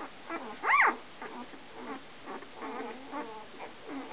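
Golden retriever puppy giving one loud squeal about a second in, its pitch rising and then falling, with soft short whimpers and grunts from the puppies around it.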